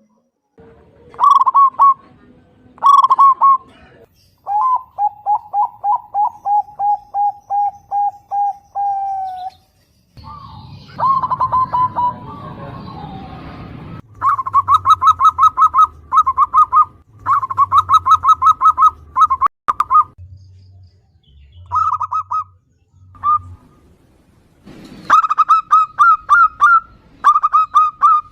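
Zebra dove (perkutut) calling: repeated bursts of quick staccato cooing notes. About five seconds in there is a steadier run of lower, evenly spaced notes, and a stretch of rough noise mixes in from about ten to fourteen seconds.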